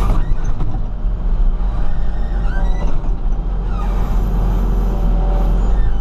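Komatsu WB140 backhoe loader's diesel engine running steadily under working load, with a few brief rising whines partway through.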